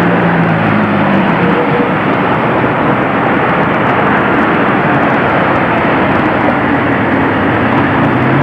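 Steady rushing noise of street traffic, with a low engine hum that fades in and out.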